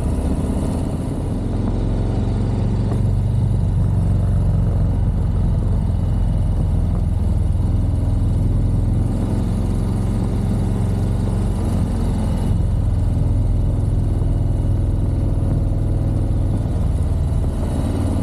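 Motorcycle engine running steadily as the bike rides along at road speed.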